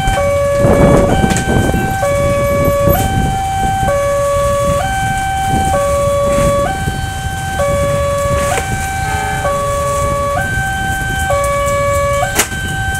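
Indonesian railway level-crossing electronic warning alarm sounding its two-tone signal, alternating steadily between a lower and a higher tone, each held just under a second, warning that a train is coming with the barrier down. A single sharp click cuts in near the end.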